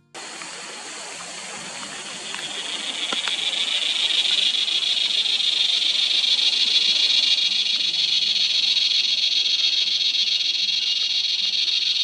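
Large Australian tree cicada singing: a loud, high-pitched, continuous buzz that starts suddenly, swells over the first few seconds, then holds steady.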